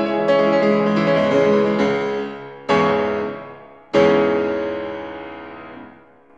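Piano music: held notes, then two chords struck a little over a second apart, the second one ringing out and fading away.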